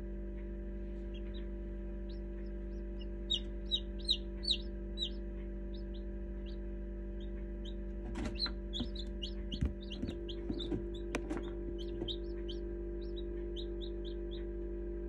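Newly hatched chicken chicks peeping in an incubator: many short, high, falling peeps in two bouts, over the steady hum of the incubator. A few soft knocks come in the middle.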